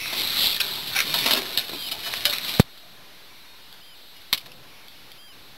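Small metal clicks of pliers working a hook and lure free from a halibut's mouth, over wind hiss. About two and a half seconds in there is a sharp click, after which the hiss stops abruptly and only one more click follows.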